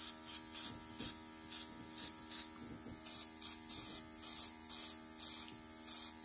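Luminess airbrush-makeup compressor humming steadily while the airbrush gun sprays makeup onto the face in short hissing bursts, about two or three a second.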